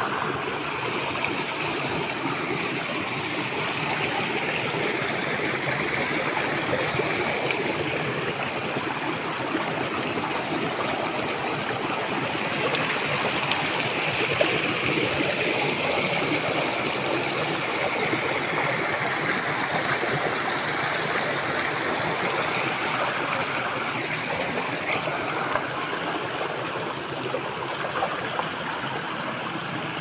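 Shallow rocky stream gushing over stones into a pool: a steady rushing and splashing of water.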